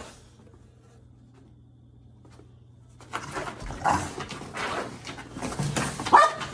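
Two dogs, a chihuahua and a pit bull, playing rough: scuffling and short growling noises start about three seconds in, after a quiet stretch with a faint hum.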